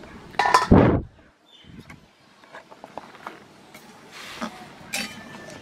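A loud metal clang with a brief ring about half a second in, then light clinks and scrapes of a metal spatula stirring in an aluminium pan of boiled Malabar spinach stalks in water.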